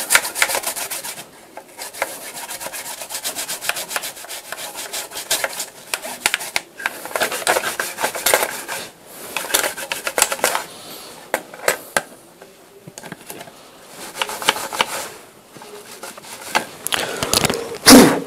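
Small brush scrubbing a desktop motherboard's RAM slots and surrounding components, its bristles making a dense, irregular scratching. Near the end there is a louder handling thump as the board is moved.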